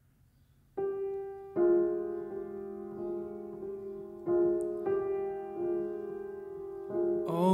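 Steinway piano beginning a slow, quiet introduction, starting about a second in: struck notes and chords about every two-thirds of a second, each left ringing into the next.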